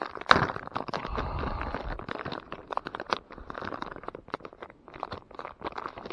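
Clear plastic zip bag of soft plastic lures crinkling and rustling as it is handled, in a run of close crackles, with a sharper knock about a third of a second in.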